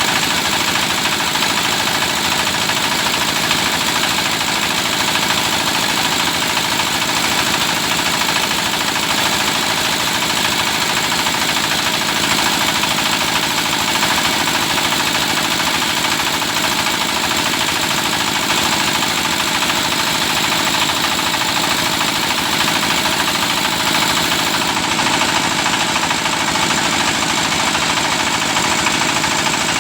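Engine of a hydraulic well-drilling rig running steadily at an even speed.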